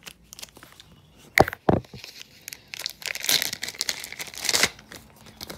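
Two sharp knocks about a second and a half in, then a few seconds of crinkling and rustling, from handling the Epson XP-15000 printer's maintenance box as it is taken out.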